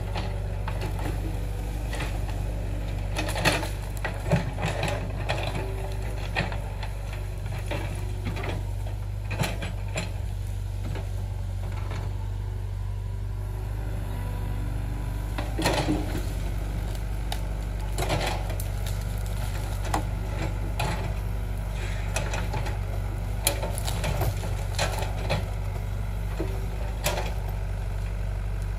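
Hitachi hydraulic excavator's diesel engine running steadily, with irregular knocks, scrapes and cracks as its bucket digs through soil and tree roots.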